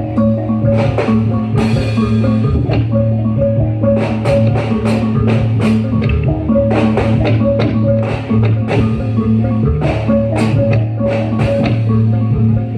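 Javanese percussion ensemble playing Reog accompaniment: ringing gongs holding steady notes under rapid, dense drum strikes.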